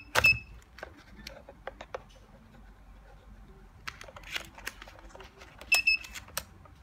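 Mercedes Vito electronic ignition switch (EIS) with a key fob being inserted and turned: sharp plastic clicks, each loud click carrying a short high beep, once at the start and twice in quick succession near the end, with softer ticks in between. The key is a poor-quality aftermarket one that does not turn smoothly in the switch.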